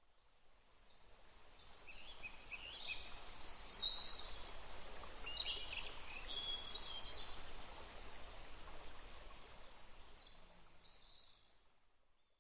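Outdoor nature ambience: many short bird chirps and calls over a steady hiss, fading in at the start and fading out near the end.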